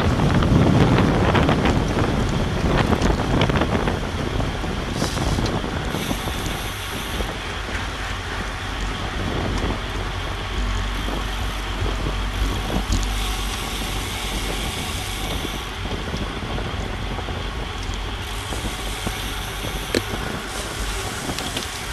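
Wind rushing over a bike-mounted GoPro's microphone at race speed, with a steady road and tyre rumble underneath. It is loudest in the first few seconds, then eases slightly.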